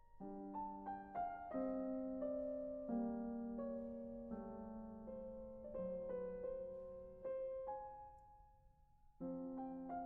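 Background piano music: single notes and chords struck and left to ring, dying away about eight seconds in, then picking up again near the end.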